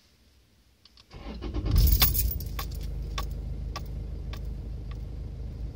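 Toyota D-4D diesel engine cold-started in freezing weather: a short crank about a second in, catching quickly, then settling into a steady rumbling idle. Sharp ticks come about every half second over the idle.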